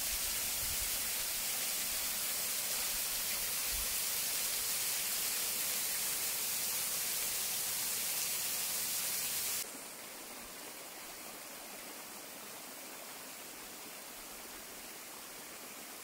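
Thin waterfall falling from a rock overhang and splashing onto stones, a steady hiss of water. It drops suddenly to a quieter level a little over halfway through.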